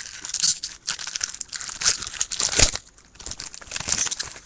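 A foil wrapper on a pack of baseball trading cards being crinkled and torn open by hand. It makes a dense, crackly rustle with several louder crackles.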